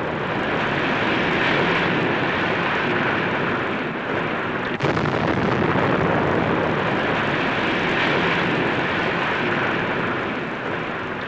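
Demolition of a ruined masonry railway station: a continuous rumbling roar of walls collapsing, with a sharp crack about five seconds in.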